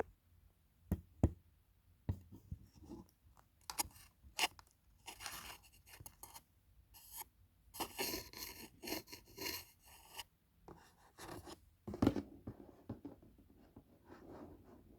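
Hands handling a round cake box and its plastic lid close to the microphone: a few sharp taps and clicks, then stretches of crinkly scratching and scraping on the plastic, and a louder knock near the end.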